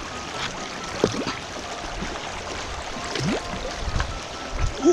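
Shallow stream water running and splashing around a hand-held scoop net being pushed and lifted through it, with short gurgling plops about a second in and near the end.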